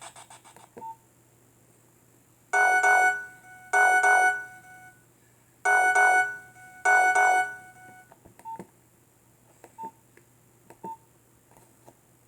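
Nokia 1600 mobile phone playing a ringtone through its small speaker: two pairs of short chiming tones. Near the end come a few short keypad beeps and button clicks.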